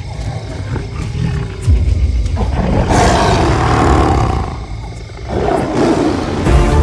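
Tiger roaring twice over a low music rumble: a long roar starting about two and a half seconds in, then a second roar after a short break.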